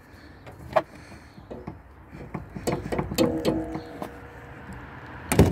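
Windscreen wiper arm being wiggled and rocked on its spindle to work it loose: a run of irregular clicks and knocks, with the loudest knock near the end.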